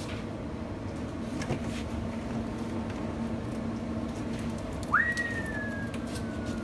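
A steady low hum with background noise. About five seconds in, a single whistled note jumps up sharply, then glides slowly down for about two seconds.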